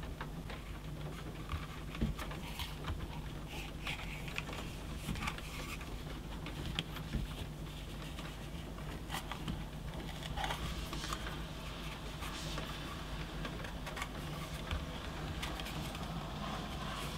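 Galvanized steel wire being bent by hand around a taped cone mould, with pliers gripping the end at the tip: scattered faint clicks, ticks and scrapes of wire on mould and pliers, over a steady low hum.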